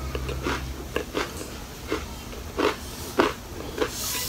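Close-up chewing of a crunchy tart shell and macadamia nuts, a short crunch about every two-thirds of a second.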